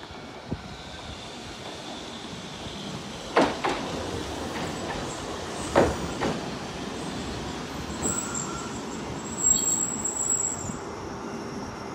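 Hankai Tramway car 501, an old tram with nose-suspended traction motors on resistance control, running past on street track: a steady running noise broken by pairs of loud wheel clacks over rail joints about three and a half and six seconds in, then a high metallic squeal in the second half.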